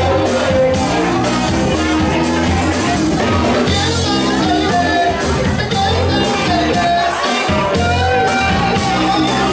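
Live rock band playing: electric guitar, bass and drums keeping a steady beat, with a sung lead vocal over them.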